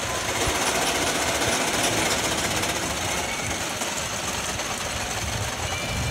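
Roller coaster train rattling along its track, a steady rapid mechanical clatter.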